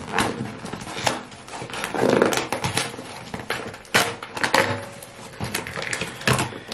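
Packaging being handled while a parcel is unpacked: irregular rustling, clicks and taps of cardboard and plastic, with a longer rustle about two seconds in.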